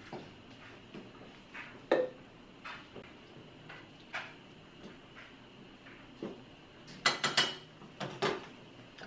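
Scattered light clinks and knocks of a pot lid and a spoon against a steel cooking pot as beans are topped up with water and stirred, with a sharp knock about two seconds in and a quick run of clatters near the end.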